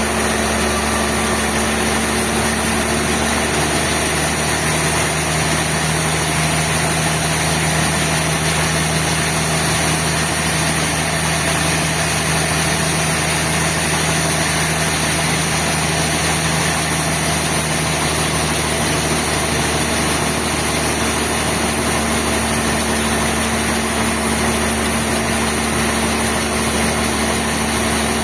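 Sawmill machinery running steadily, a loud even noise with a hum under it. The hum drops a little in pitch a few seconds in and comes back up about three-quarters of the way through.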